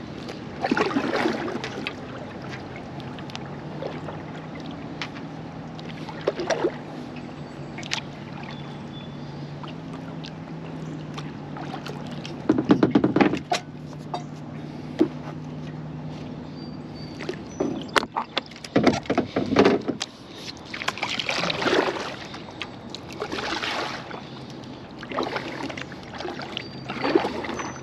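Double-bladed kayak paddle dipping and pulling through calm river water, splashing and dripping in irregular strokes every few seconds. A low steady hum runs underneath through the first half.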